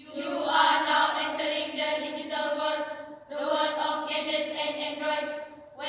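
Mixed school choir of teenage voices singing held notes together as a chord, in two long phrases with a brief break about three seconds in.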